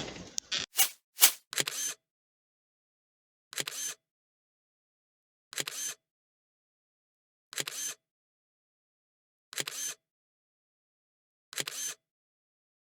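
Short sharp clicks: a few in the first two seconds, then a brief click burst about every two seconds, with dead silence between.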